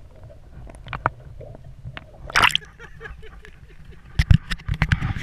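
Water sloshing and gurgling around an underwater camera, with scattered clicks, a loud splash about two and a half seconds in, and a dense run of splashes and knocks near the end.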